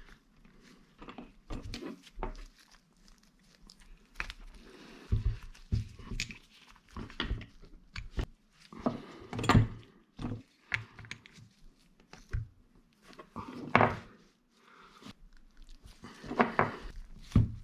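Irregular clicks, taps and knocks of hand work on a brake caliper as a rubber piston boot is pressed and worked onto the piston by hand, with a few louder knocks in the middle.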